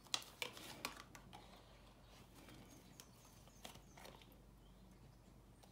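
Faint, scattered taps and clicks of oracle cards being drawn and set down on a shelf, a few sharper ones in the first second, in near silence.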